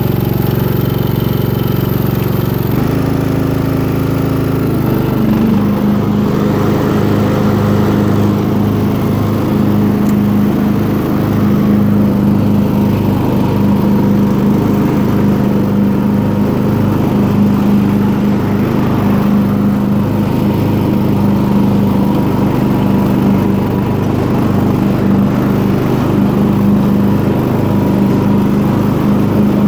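Briggs & Stratton 15.5 HP engine of a Craftsman riding mower running loudly. Its pitch shifts about three seconds in and again about five seconds in, then holds steady.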